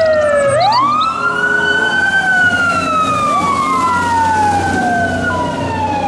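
Fire engine sirens wailing as several fire trucks respond: one siren twice sweeps up quickly and slides slowly back down, with a second siren's tone overlapping it, over a steady low engine hum.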